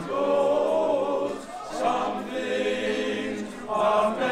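Male barbershop chorus singing a cappella in close harmony, holding long chords.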